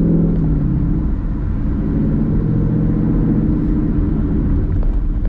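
2018 Ford Mustang GT's 5.0 L Coyote V8 through an AWE Touring catback exhaust, heard from inside the cabin. The engine note drops as the revs fall in about the first second, then settles into a steady low drone over road rumble while cruising.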